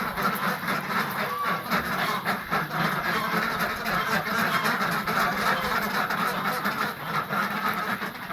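A flock of ducks quacking all at once in a constant, noisy clamour.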